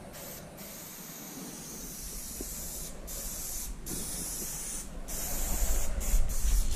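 Aerosol spray paint can hissing as paint is sprayed onto a wall, in long bursts broken by several brief pauses.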